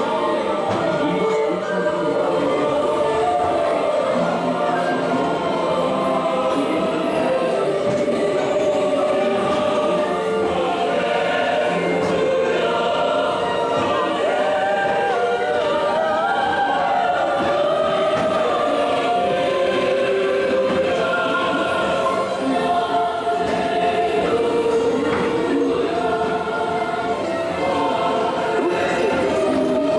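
Choral music: a choir singing long, sustained lines.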